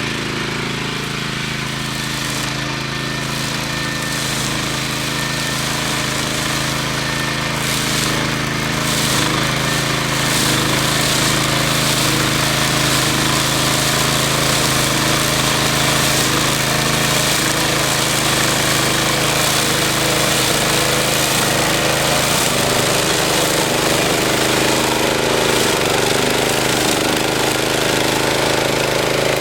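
Power Dog brush mower's 9 hp Honda engine running steadily; about eight to ten seconds in, the sound grows louder and fuller.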